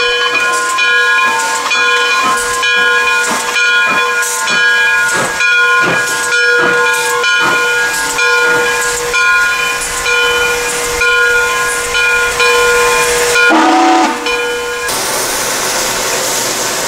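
Bell of the steam locomotive Frisco 1630 ringing steadily, struck about every half second, with steam hissing underneath. The bell stops about two seconds before the end, leaving the steam hiss.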